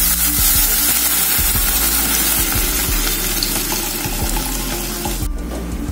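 Steady sizzling hiss from a pot on the stove, with water just added to the fried spice paste for sayur lodeh broth. The hiss cuts off abruptly a little over five seconds in, leaving a quieter background.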